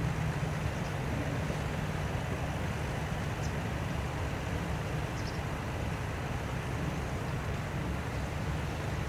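Tractor engine running steadily under load, a continuous low rumble.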